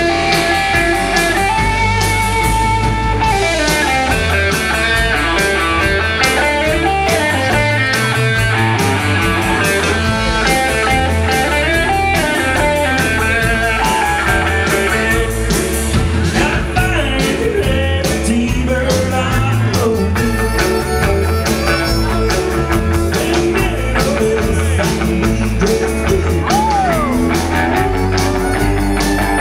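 Live country band playing with fiddle, electric guitars, bass and drums keeping a steady beat, with singing.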